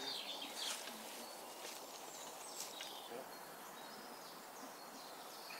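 Outdoor background: a steady hiss with scattered short, high chirps of small birds.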